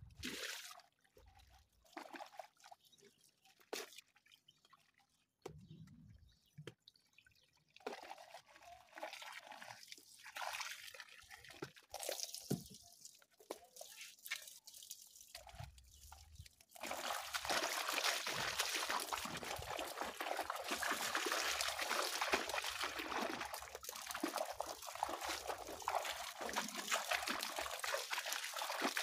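Water dripping and trickling, with scattered drops at first; about seventeen seconds in it turns suddenly into a louder, steady run of water.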